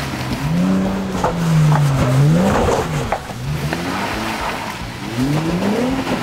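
Jeep Gladiator 4WD ute's engine revving up and down several times under load while its tyres spin and scrabble for grip on a rock step, with sharp clicks and knocks from the tyres and rock.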